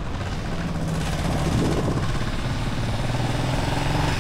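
A motor vehicle's engine running steadily, its pitch shifting slightly as it goes.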